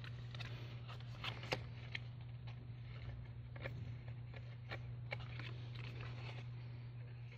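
Yellow craft paper being handled, folded and glued, giving scattered small crinkles and taps over a steady low hum.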